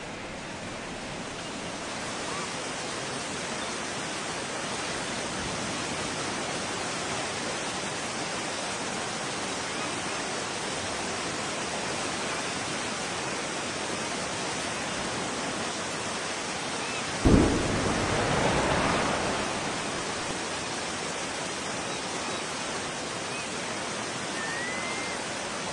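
A steady rushing noise like heavy surf or downpour, with one sudden deep boom about seventeen seconds in that rumbles away over a couple of seconds: the blast and spray of an underwater atomic bomb test.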